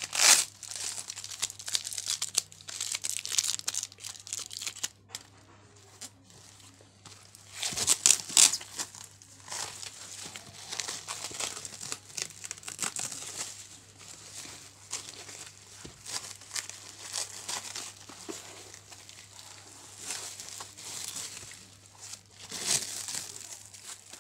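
Clear plastic stretch wrap on a parcel crinkling and tearing as it is pulled open by hand, in irregular bursts. The loudest bursts come at the very start, about eight seconds in and near the end, with a quieter lull around five to seven seconds.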